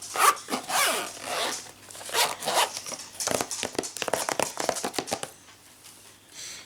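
A zipper pulled several times in quick strokes, the teeth ticking, over about the first five seconds, then quieter handling.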